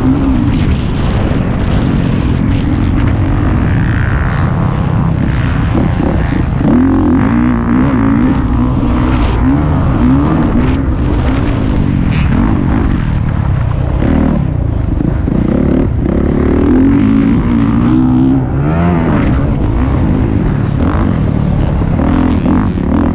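Honda motocross bike's engine under hard riding, revving up and backing off over and over, its pitch climbing and dropping as the rider works the throttle and shifts.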